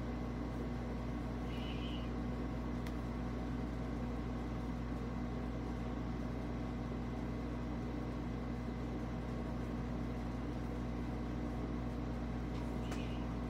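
Steady low mechanical hum of room equipment, unchanging throughout, with two brief faint high chirps, one about two seconds in and one near the end.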